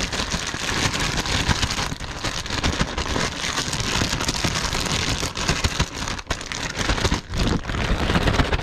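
Clear plastic bag crinkling continuously as it is shaken and kneaded to mix fish fillets with oil, seasoning, cilantro and lime juice.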